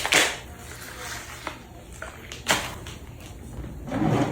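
A few separate knocks and clunks of objects being handled, the loudest coming about two and a half seconds in and near the end.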